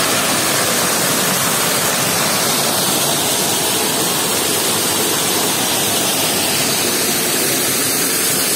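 Small waterfall: a stream of water spilling off a wooden chute and splashing onto the rocks just below, a loud steady rush of water.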